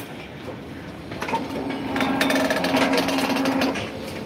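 Electric rebar bending machine running as its turntable bends a bundle of steel reinforcing bars. It starts with a click about a second in, hums steadily for about two and a half seconds, then stops near the end.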